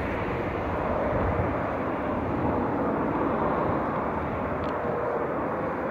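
Steady jet-engine noise of a Boeing 747-400F freighter on final approach to land, swelling slightly about a second in.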